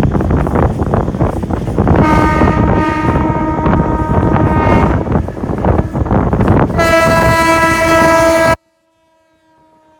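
Indian Railways WAP7 electric locomotive's multi-tone horn sounding two long blasts over the rumble and wind noise of a moving train: one about two seconds in lasting some three seconds, and a louder one near the end that cuts off suddenly.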